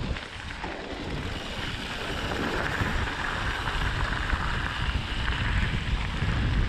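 Wind buffeting the microphone of a handlebar-mounted action camera on a mountain bike, over the steady noise of knobbly tyres rolling on a gravel forest road. It grows a little louder near the end.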